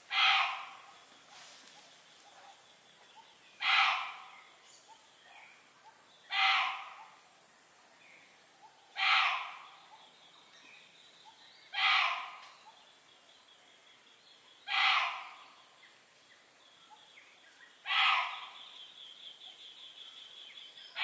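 An animal call repeated at an even pace about every three seconds, seven times, each one a short, loud note that quickly fades. A faint steady high hum runs underneath.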